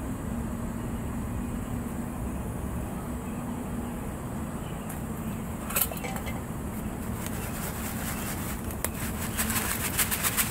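Foil ration pouch crinkling: one short crackle near six seconds as a hand reaches in, then from about nine seconds in a fast run of crackling rustles, growing louder, as the pouch is lifted and shaken to dry-mix seasonings inside it. Under it is a steady low background rumble.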